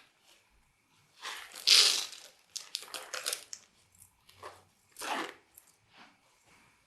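Slime being squished and stretched by hand in several irregular bursts, loudest about two seconds in, with a run of quick sticky crackles and pops around three seconds in.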